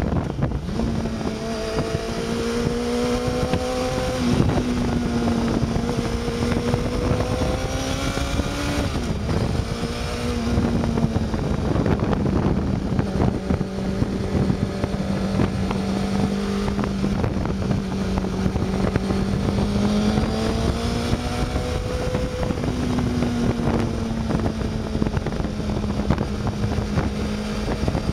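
Honda CBR600 F2's inline-four engine under way, its note rising and dropping again and again with the throttle through the bends, and holding steady for several seconds midway, over a rush of wind on the microphone.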